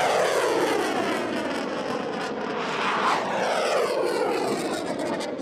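Iskander-M missile's solid-fuel rocket motor running at full thrust as the missile climbs away after launch: a loud, continuous rushing noise whose pitch seems to sweep down and then back up about three seconds in.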